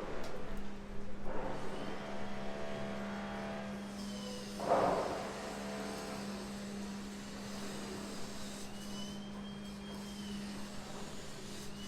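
Construction machinery engine running with a steady low hum, a loud rattling burst about five seconds in, and a faint high whine that rises and falls twice, under a constant hiss of rain.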